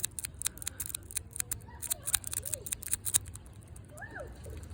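Rapid, irregular metallic clicking of a dimple rake being worked in the keyway of a small TSA 006 dimple lock, raking the pins. The clicking stops about three seconds in.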